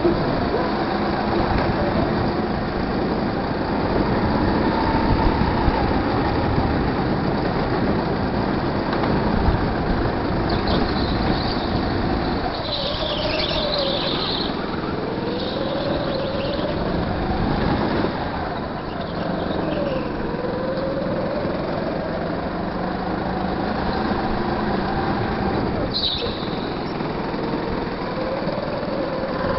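Go-kart engine heard from the driver's seat, its pitch rising and falling again and again as the kart accelerates down straights and lifts for corners. Tyres squeal briefly on a tight corner about halfway through and again near the end.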